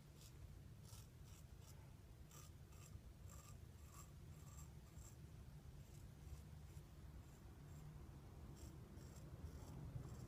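Faint, crisp scraping of a 7/8 straight razor (Riccardo Tonarini Lobster) cutting through about two weeks' stubble on the upper lip, as a run of short strokes in the first half and a few more near the end.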